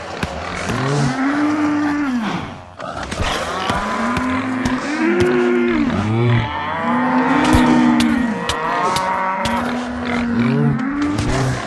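Stomach-growling sound effect played over and over and layered on itself: many overlapping long groans that rise and fall in pitch, much like cattle mooing, with a few sharp clicks scattered through.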